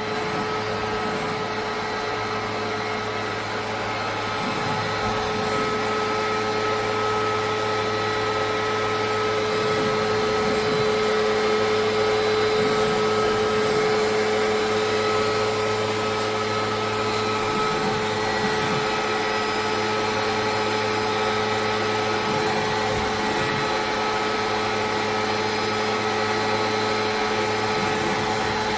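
CNC stone working center running: a steady machine hum and whine made of several constant tones over a noise hiss, with no cutting impacts. The higher whine fades a little past the middle.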